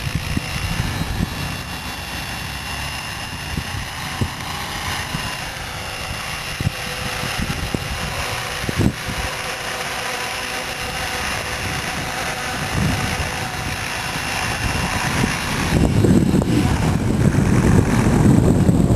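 Hurricane E550 radio-controlled helicopter in flight: a steady whine from its motor and rotors. It gets louder, with a low rumble, in the last few seconds.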